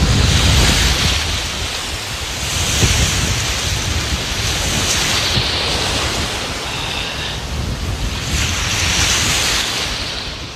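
Sea waves washing and breaking, the surf hiss swelling twice, with wind buffeting the microphone.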